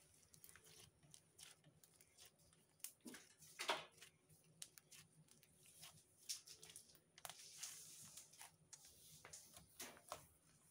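Pink slime being squeezed and kneaded by hand: faint wet squishes with irregular small clicks and pops, the loudest squish about three and a half seconds in.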